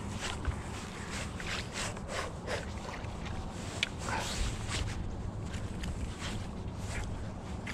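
A baitcasting rod and reel being worked while ripping a rubber bait: the reel is cranked and the rod handled, giving irregular clicks, knocks and rustles over a steady low hum.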